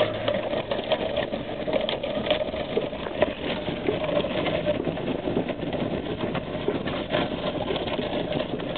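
Engine of a towing vehicle running steadily while it drives on a gravel road, pulling a wrecked truck on a tow strap, with a steady crackle of gravel and rattles throughout.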